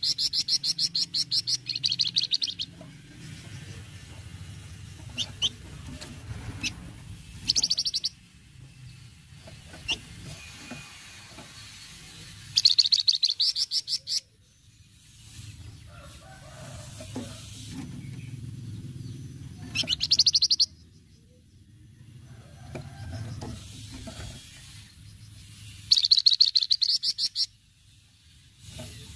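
Flamboyan bird giving its rattling 'cretetan' chatter: bursts of rapid clicking notes, about ten a second, each burst lasting one to two seconds and repeated five times with pauses between. A faint low rumble runs underneath.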